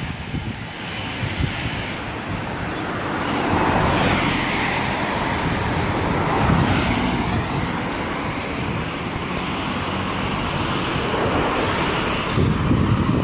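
Road traffic passing on a bridge roadway: a steady rush of tyres and engines, swelling louder as vehicles go by a few seconds in and again near the end.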